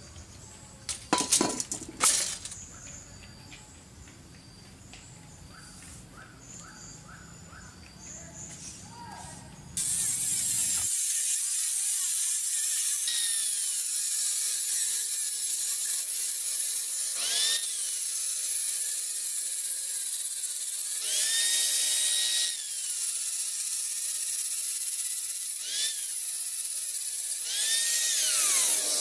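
A handheld angle grinder with a thin cut-off disc cutting a steel flat bar starts about a third of the way in: loud and steady, with a motor whine that sags and climbs again several times as the disc bites into the steel and eases off. Before it, a few sharp knocks.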